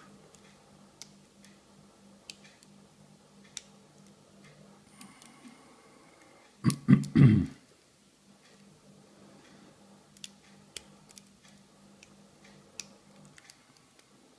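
Faint, scattered metallic clicks of a pick working the pins of an Abus Titalium 80TI/40 aluminium padlock under a tension bar. A short cluster of loud thumps about seven seconds in.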